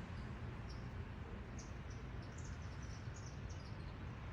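A small songbird chirping a quick, jumbled run of short high notes over the steady low hum of a fan.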